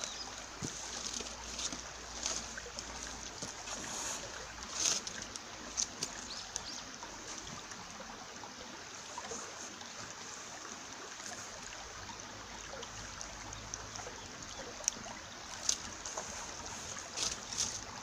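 Shallow mountain stream babbling steadily over rocks and boulders, with a few brief sharper splashes now and then.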